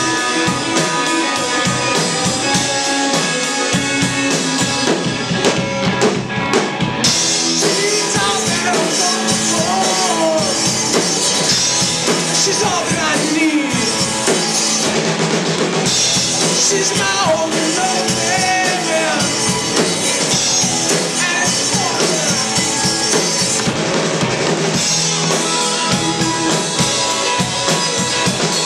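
Live rock band playing: two electric guitars over a drum kit. The cymbals come in about seven seconds in, and a lead line bends and wavers in pitch above the chords.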